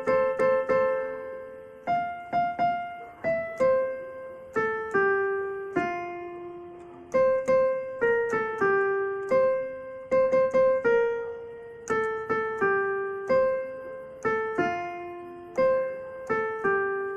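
Piano music: a slow melody of single struck notes, with now and then two or three together, each ringing and fading before the next.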